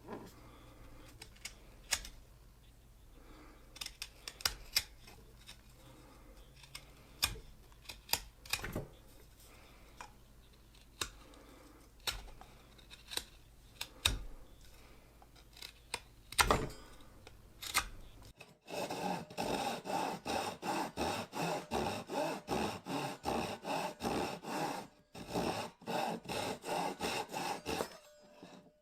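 Hand-tool work: scattered scrapes and knocks, then, about two-thirds of the way in, a steady run of even rubbing strokes, two or three a second.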